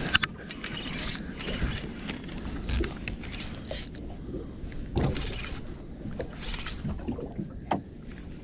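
Daiwa saltwater spinning reel worked by hand, its handle turned in short spells, with irregular clicks and knocks from the reel and rod being handled.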